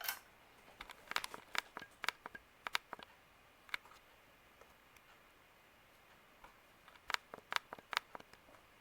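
Light, irregular clicks and ticks in two short clusters a few seconds apart from a Palm Air ceiling fan just started on low speed; no steady motor hum stands out.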